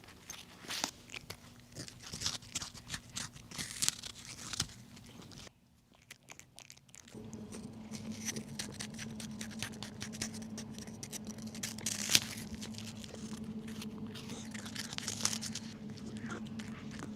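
A cat crunching and chewing a crunchy freeze-dried chicken treat: many quick, crisp crunches and bites. The crunching drops out briefly about six seconds in, and from then on a low steady hum runs underneath it.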